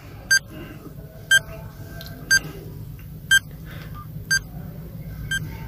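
Countdown timer beeping once a second: six short high pips, evenly spaced, over a low steady hum.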